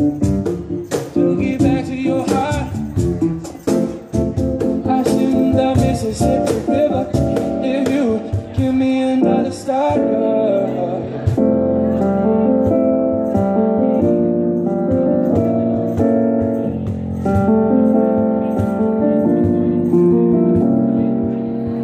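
Live band music: a man sings into a microphone over keyboard accompaniment. For the first ten seconds or so a busy, choppy rhythm drives it, then it gives way to held keyboard chords that change in steps.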